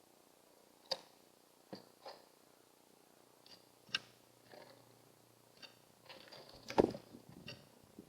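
Pigeons pecking at a bird feeder: scattered sharp taps and clicks of beak on the feeder, a second or so apart, with a louder knock near the end.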